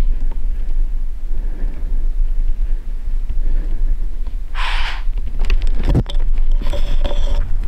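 Wind buffeting the microphone, a steady low rumble. Past the middle comes a short hissing burst, then a knock and a rustle as the camera is swung round.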